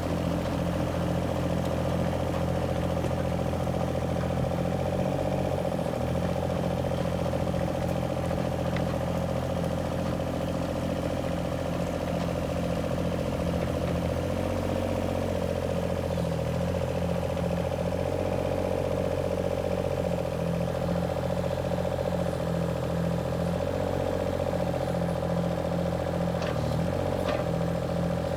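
IHI mini excavator's diesel engine running steadily, with two light knocks near the end.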